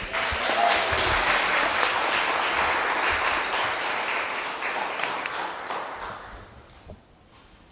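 Audience applauding. The applause starts suddenly and dies away after about six seconds.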